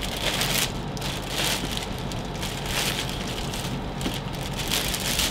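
Clear plastic packaging wrap crinkling and rustling in irregular bursts as it is pulled and pushed off a scooter's handlebar.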